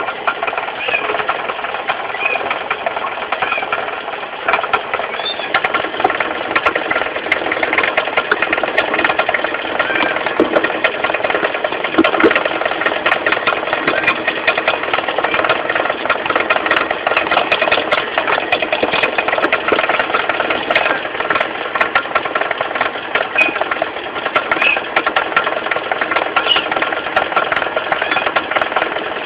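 Mitsubishi 4G15 carbureted four-cylinder engine running steadily with a rapid, continuous knocking rattle from down at the crankshaft pulley: the pulley is loose on the crankshaft.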